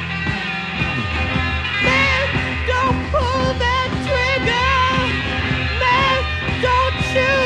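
1960s psychedelic rock music with a steady beat and bass. A bending, wavering melodic lead line comes in about two seconds in.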